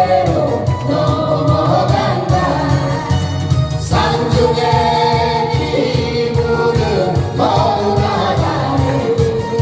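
A group of singers performing a Korean folk song (minyo) with instrumental accompaniment and a steady beat.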